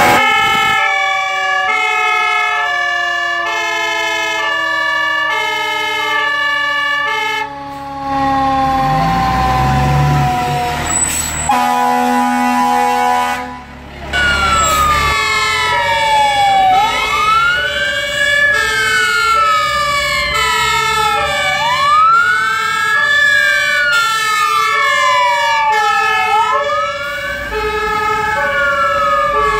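Fire engine sirens. A two-tone hi-lo horn alternates steadily throughout. In the first part it sounds over a siren winding slowly down in pitch, and from about halfway in over a mechanical siren that rises quickly and falls slowly, repeating about every two and a half seconds.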